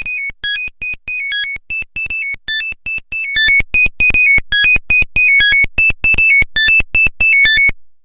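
Nokia 1100 monophonic ringtone: a quick melody of short, high electronic beep notes that stops suddenly near the end.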